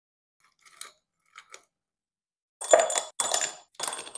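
Ice cubes dropped into a tall glass, clinking and clattering against the glass. A couple of faint clinks come first, then three loud bursts from about two and a half seconds in.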